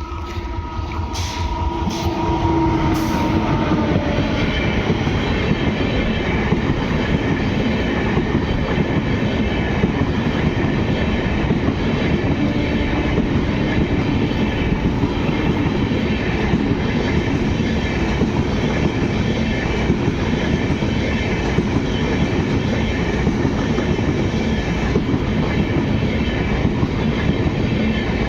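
Express train passing close by at speed: a steady rumble with the clatter of wheels over rail joints, building over the first few seconds and then holding for the rest.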